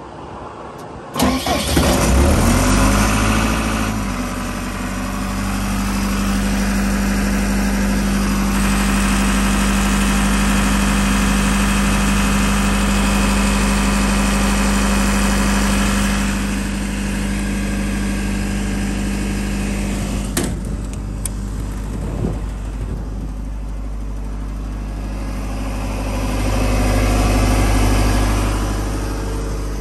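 John Deere diesel engine cranked and started about a second in, rising in pitch briefly as it catches, then running at a steady idle.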